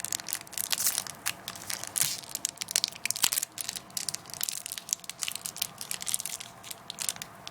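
Foil Pokémon booster pack wrapper crinkling and crackling as hands work at tearing it open. The crackles come in quick, irregular clusters.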